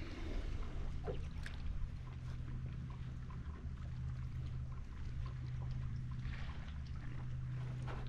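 Small water splashes and lapping against the hull of a small fishing boat, over a low wind rumble and a steady low hum, with a few faint ticks.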